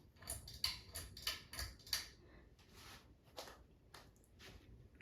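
A run of short, irregular clicks and ticks, crowded together in the first two seconds and then only a few scattered ones.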